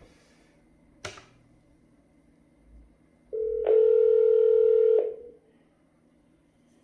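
A sharp click about a second in, then a steady electronic telephone tone lasting under two seconds that cuts off abruptly.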